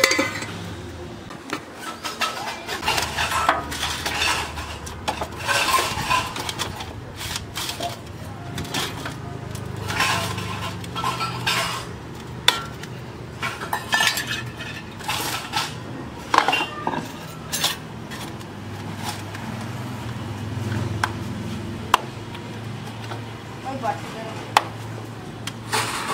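Steel pots, plates, bowls and lids clinking and knocking as they are handled and set down, with sharp clinks scattered throughout.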